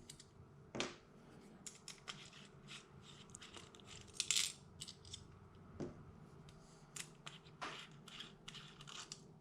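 Faint, irregular clicks and light metallic clinks as small stainless steel screws are backed out of an anodised aluminium cheek riser with a 3 mm hex wrench.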